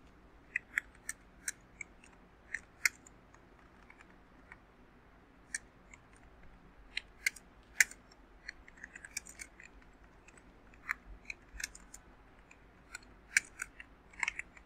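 Keystrokes on a computer keyboard: irregular single clicks and short quick runs of typing, with pauses between them.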